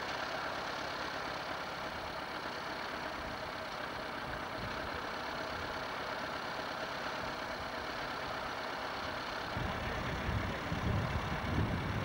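Vintage tractor engine idling steadily under a hiss of old tape sound. About nine and a half seconds in, a louder, uneven low rumble comes in.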